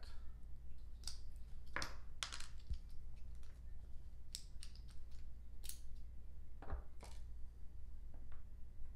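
Irregular light clicks and taps, about ten over several seconds, as the small metal sear parts of a Kythera HPA trigger assembly are worked loose with a hex key and handled on a parts board. A low steady room hum lies underneath.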